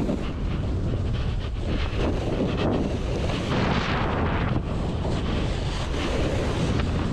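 Wind buffeting a body-mounted camera's microphone during a fast powder snowboard descent. It mixes with the hiss of a Jones Hovercraft splitboard's base and edges sliding through snow, which swells and fades with the turns.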